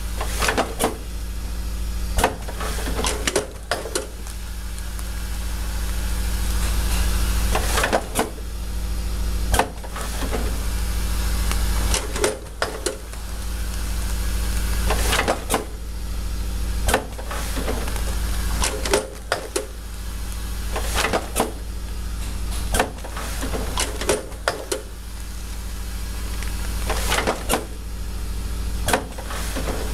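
APAI Autocard HS heat seal header card machine running: a steady machine hum broken every one to three seconds by a cluster of sharp mechanical clacks as it cycles to seal header cards onto bags.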